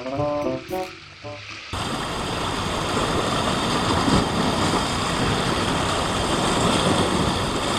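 A short musical jingle of a few notes, then, from a sudden cut under two seconds in, a steady rushing noise of sea surf and wind.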